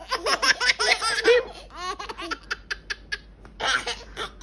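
Babies laughing hard, in quick repeated bursts of high-pitched giggles.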